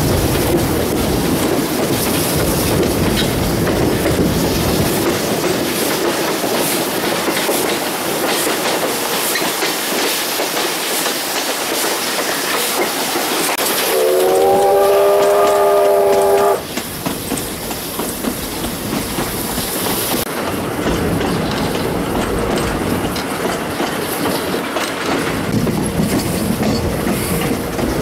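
Heritage steam train running, with steady wheel-on-rail noise and carriage rattle. About halfway through, the J class steam locomotive's whistle sounds once for about two and a half seconds as a chord of several tones. It rises slightly at the start and cuts off sharply.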